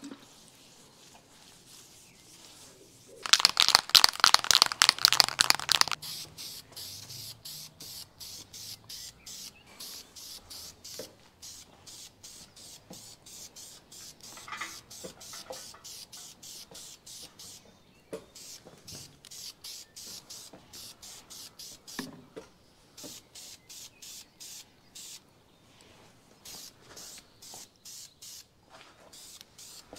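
Hand-polishing a stainless steel exhaust muffler: a rapid rattle for about three seconds a few seconds in, then a long run of short, quick rubbing and spraying strokes, about two or three a second, with brief pauses.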